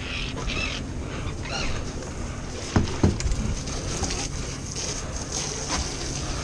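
A freshly landed fish knocking twice against a boat deck, close together about three seconds in, over a steady low rumble and hiss of wind and the boat.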